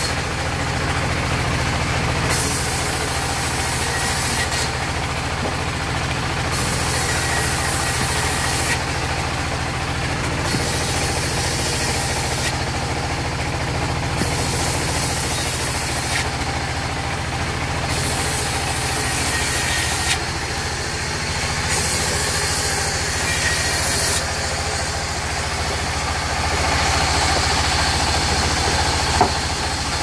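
Sawmill band saw running with a steady low hum from its drive. About every few seconds a stretch of high hiss comes in as the blade rips through a mahogany board, then drops away.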